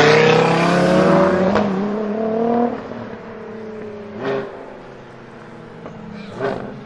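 Supercharged Lamborghini Huracán V10 with an Akrapovic exhaust accelerating hard away, its engine note rising in pitch, then dropping off sharply a little under three seconds in. A fainter engine follows, with two short louder bursts.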